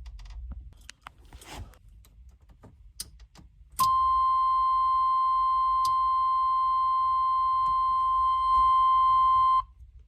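A few light clicks, then a steady electronic beep at one constant pitch starts suddenly about four seconds in. It holds for about six seconds and cuts off sharply.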